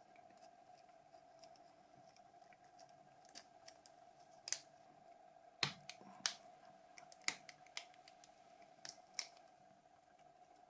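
Sharp little clicks and ticks of small plastic phone parts and tools being handled during repair work, about seven of them starting around four seconds in, over a faint steady hum.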